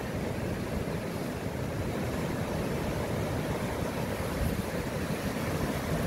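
Sea surf breaking and washing up a sandy beach: a steady, low rushing noise.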